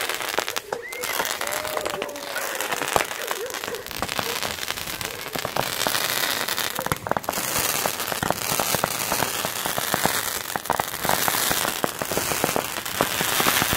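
A ground-launched fireworks battery (cake) firing a rapid, continuous string of shots, with dense crackling pops throughout.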